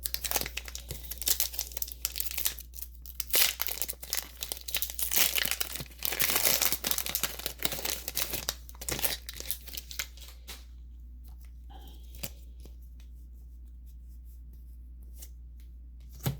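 Foil Pokémon booster pack wrapper being torn open and crinkled for about ten seconds, then only a few light clicks of handling.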